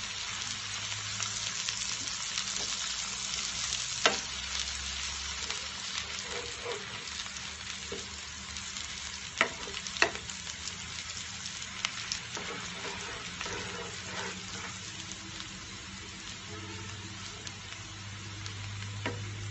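Chopped onion and garlic sizzling in hot mustard oil in a frying pan while being stirred with a wooden spatula. A few sharp knocks of the spatula against the pan stand out, one about four seconds in and two close together around nine to ten seconds.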